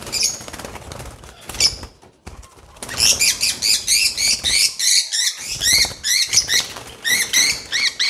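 Fischer's lovebird being caught by hand in its cage: scuffling at first, then from about three seconds in a rapid run of sharp, high calls, about three or four a second, as the bird is held.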